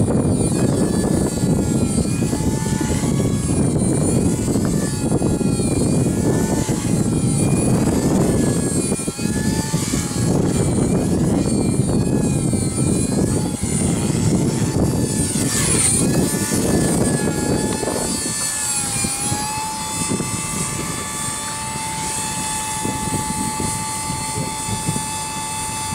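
Walkera V200D03 RC helicopter in flight, its electric motor and three-blade rotors whining with a pitch that wavers up and down as the throttle changes, under heavy wind rushing on the microphone. About two-thirds of the way in the wind noise drops away and the whine settles into a steady tone.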